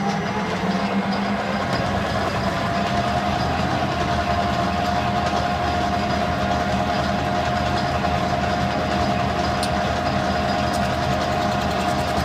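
Metal lathe running with a steady whine that rises slightly in pitch over the first two seconds, while a cutter made from used milling inserts takes a cut in 1018 steel.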